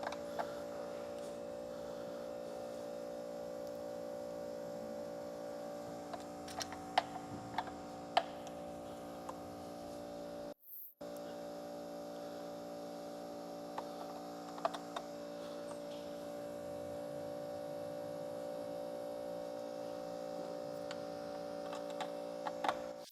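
A steady hum with several fixed tones, over which small metal parts and tools give a few light clicks and taps in short clusters several seconds apart.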